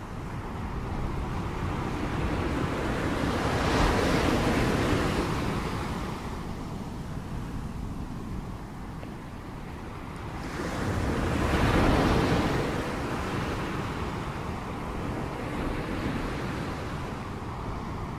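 Ocean surf: waves breaking and washing up the shore, swelling twice, about four and about twelve seconds in, then easing off.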